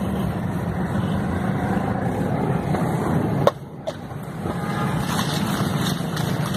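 Steady hum of road traffic, car and motorbike engines running close by. About halfway through there is a sharp click, after which the hum drops quieter for about a second before returning.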